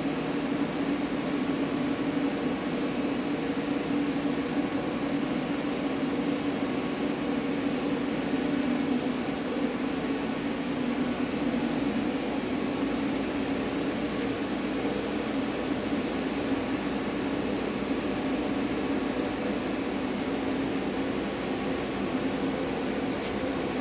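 Powered-up Miyano BNE-34S2 CNC lathe idling: a steady machine hum with a strong low drone.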